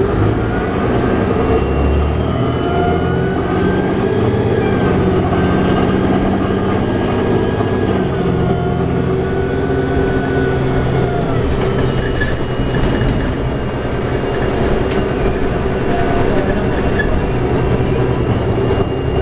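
Cabin sound of a New Flyer D60LFR articulated bus under way, its Cummins ISL9 diesel engine and Allison B500R automatic transmission running. A drivetrain whine rises in pitch over the first few seconds, holds, then falls away about halfway through as the bus changes speed.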